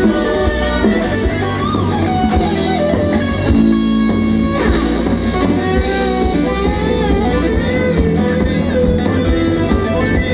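Live rock band playing, with electric guitar to the fore over drums and bass; the guitar line has sliding notes.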